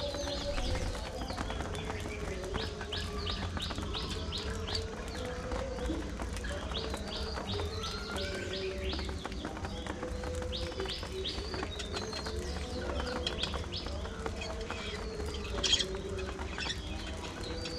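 A flock of budgerigars chirping and chattering, with rapid runs of short high chirps and a lower wavering warble underneath. A sharp click near the end is the loudest moment.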